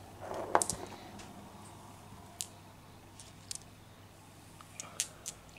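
Glass marbles rolling and knocking together: a short rolling rush with clicks in the first second, then a few scattered sharp clicks.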